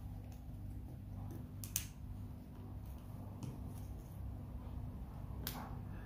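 Faint small clicks as fingers press and fit parts inside an opened iPhone 6S, over a steady low hum. The sharpest click comes a little under two seconds in, another near the end.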